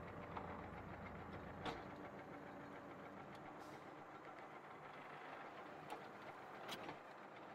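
Ursus C-392 tractor's diesel engine running steadily as it tows a Strumyk 2.4 disc harrow through stubble, the harrow's discs working the soil, with a few sharp knocks from the machinery. Fairly quiet overall.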